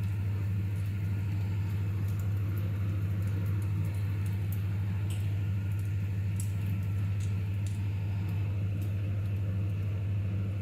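A steady low electrical hum, one unchanging pitch with a weaker overtone above it, with a few faint ticks scattered through it.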